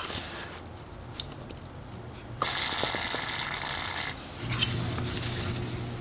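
Aerosol degreaser sprayed in one steady hiss of about a second and a half, near the middle, to clean oil off the engine casing. Paper towel rustles and small handling clicks come before and after it.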